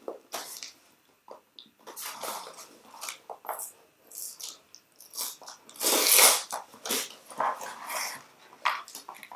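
Small cardboard box being opened by hand: its flaps and packaging rustle and crackle in irregular bursts, loudest about six seconds in.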